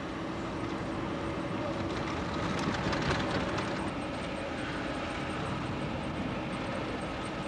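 Steady engine and road noise of a moving car, heard from inside the car, with a few brief rattles near the middle.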